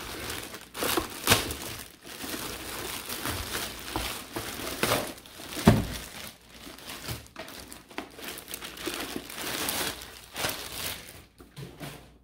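Clear plastic wrapping crinkling and rustling as a child's booster seat is pulled out of its bag, with one heavier thump a little before halfway through.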